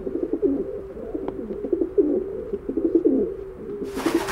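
Doves cooing, one low, falling coo after another. About four seconds in, a broad hiss-like noise joins.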